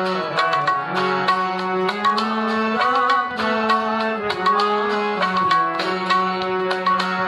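Instrumental bhajan music: a harmonium plays a melody of held notes that step from pitch to pitch, over a steady tabla rhythm.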